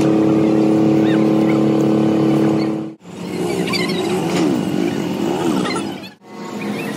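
Engine running at a steady speed, broken by abrupt cuts. About three seconds in, a machine sound whose pitch wavers up and down takes over, with birds chirping. It cuts back to steady running near the end.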